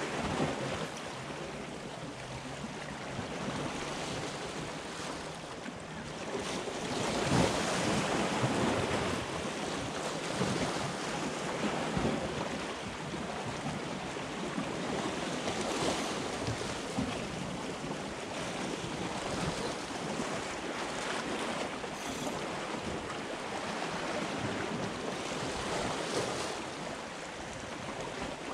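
Wind rushing over the microphone with small waves washing against shoreline rocks, a steady hiss that swells louder for a few seconds and eases off again.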